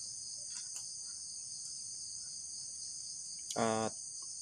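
Steady, high-pitched chorus of insects chirring in the trees. Near the end a person's voice makes one short sound.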